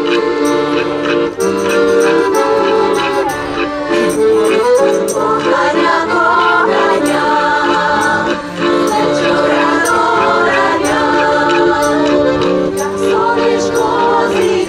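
Women's choir singing a folk song in harmony, accompanied by a piano accordion.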